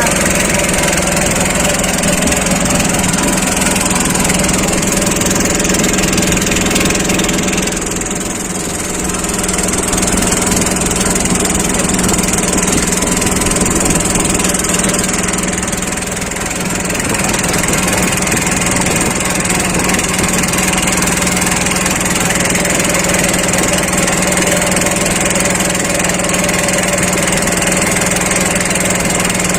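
A small engine running steadily, dipping slightly in level twice, about a third and about halfway through.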